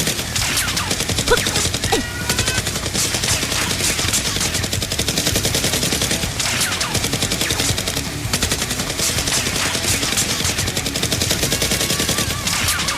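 Rapid, near-continuous automatic gunfire, with dense volleys of shots and no real pauses.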